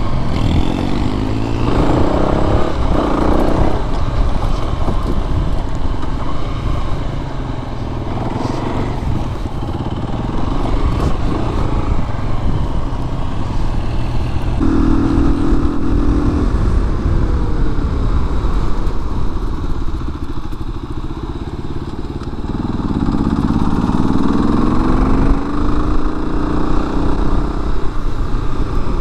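Kawasaki KLR250 single-cylinder four-stroke dirt bike riding along, its engine note rising as it accelerates in the first few seconds, holding a steady pitch near the middle, and climbing again in a series of rises near the end.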